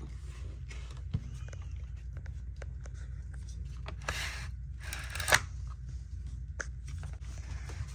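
Handling of a RYOBI ONE+ 18V cordless narrow crown stapler: scattered small clicks, plus two brief scraping, rustling bursts around the middle, the second ending in a sharp knock. A low steady hum runs underneath.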